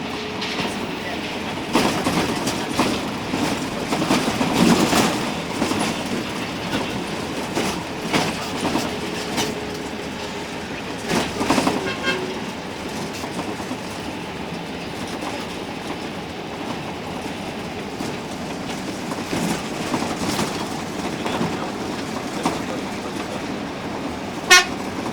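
Cabin noise of an intercity coach (Adi Putro Jetbus HD body) on the move: a steady rumble with repeated knocks and rattles, busiest a few seconds in, and a brief sharp sound near the end.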